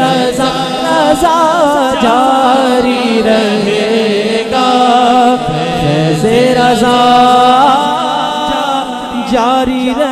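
Men singing an Urdu manqabat (devotional song) without instruments through a PA: a lead voice sings wavering, ornamented lines over other voices holding steady notes.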